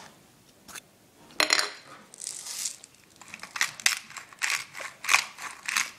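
A sharp knock about a second and a half in, then from about three seconds in the built-in plastic grinder of a Tellicherry pepper bottle being twisted, crunching peppercorns in short rasping strokes about three a second.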